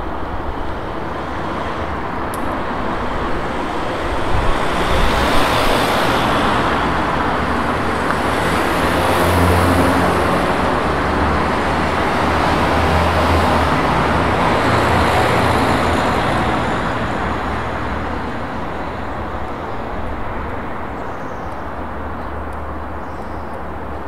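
Road traffic: a steady wash of passing cars with a low engine hum, swelling as vehicles go by, loudest in the middle and fading again.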